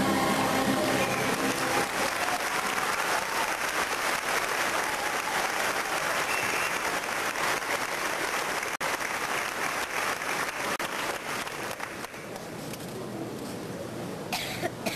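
Audience applauding, dense clapping that thins out and dies down about twelve seconds in.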